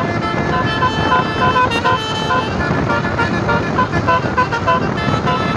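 Azzahra Holiday tour bus's Basuri telolet horn playing a quick melody of short, changing notes over a noisy background.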